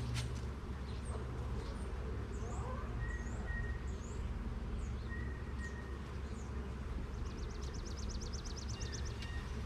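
Honeybees humming steadily around an open hive, with small birds calling over it: a few short upswept chirps in the first few seconds and a fast high trill of about eight notes a second near the end.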